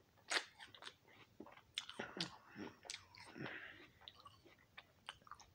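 A person chewing a mouthful of raw apple close to the microphone: irregular crunches, strongest in the first half and growing fainter toward the end.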